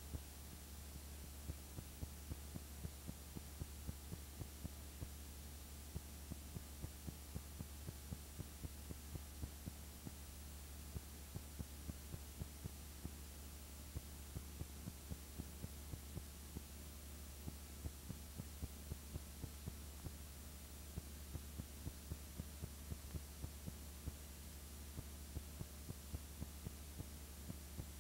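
Faint steady low hum with regular soft clicks, about three or four a second, and no sound of the filmed scenes.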